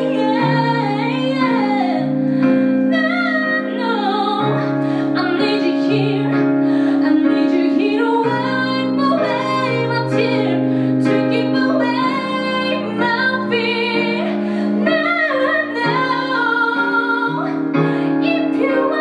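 A woman singing, accompanying herself on a Korg SP-100 digital piano, with held piano chords under the sung melody.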